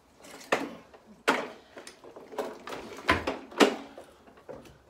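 A handful of sharp knocks and clatters, about four of them loud, as the plastic parts of a Bosch Rotak lawnmower are handled and moved about during assembly.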